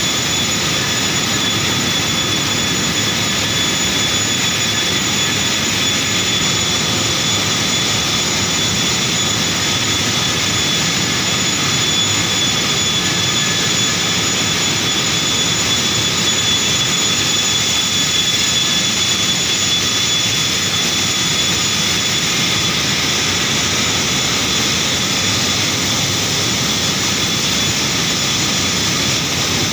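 Paper machine running at speed in a paper mill: a loud, steady mechanical noise with several high, steady whining tones over a dense hiss.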